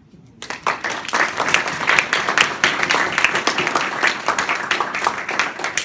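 Audience applauding at the end of a talk, the clapping starting about half a second in and dying away at the very end.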